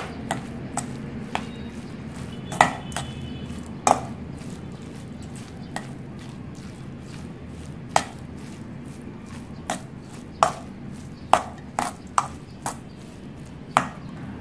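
Metal spoon clinking against a stainless steel bowl at irregular moments, about a dozen sharp clinks, as it stirs cooked rice mixed with raw egg. A steady low hum runs underneath.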